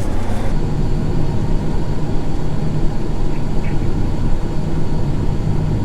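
John Deere S780 combine's diesel engine running with a steady low drone, heard from inside the cab.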